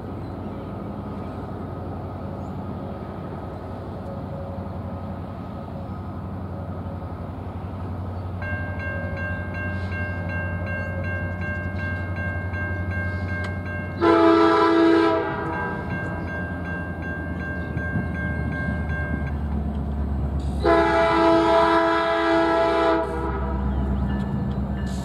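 CN SD70M-2 diesel locomotive approaching at the head of a grain train, its engine running and growing louder as it nears. A bell rings steadily from about a third of the way in, and the air horn sounds twice: a short blast about halfway through and a longer one a few seconds later.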